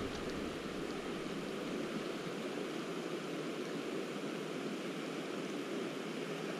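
River current flowing steadily over a stony bed, an even hiss of water with no breaks.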